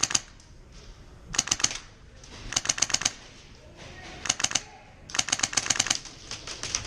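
Airsoft guns firing in rapid full-auto bursts, about five bursts of fast clicking shots with short pauses between, the longest near the end.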